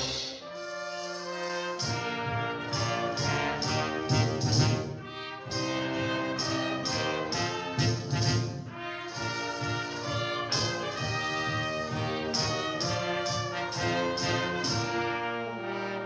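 Orchestral cartoon score with brass to the fore, playing short accented chords over a moving orchestral line.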